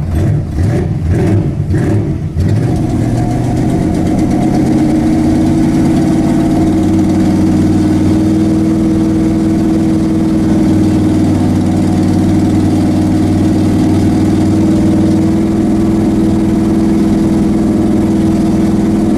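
Ford Ranger drag truck's engine stumbling unevenly for about two seconds on a cold start below freezing, then catching and running steadily at idle.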